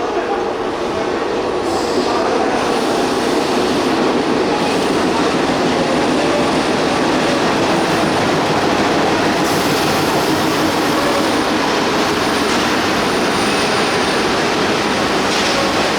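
Passenger train moving on the rails: a steady loud rumble and rattle of the coaches, with a faint high-pitched squeal from the wheels now and then, strongest in the second half.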